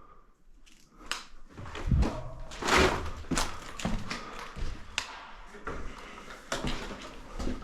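A series of irregular thumps and knocks, wood being handled or struck, with some louder knocks around the middle.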